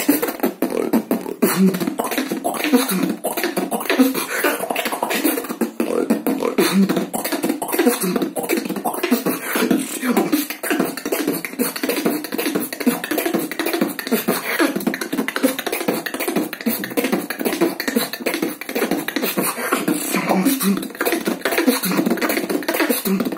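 Solo human beatboxing, a beatbox drop: a dense, unbroken run of mouth-made percussive hits with pitched vocal sounds woven through.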